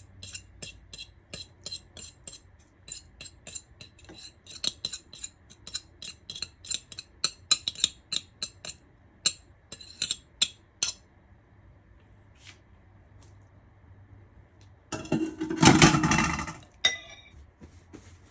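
Kitchen utensils clicking and clinking against a bowl and dishes as green onions go into the tuna mix: a quick, uneven run of sharp clicks, a few a second, for the first ten seconds or so. About fifteen seconds in comes a louder clatter lasting a couple of seconds.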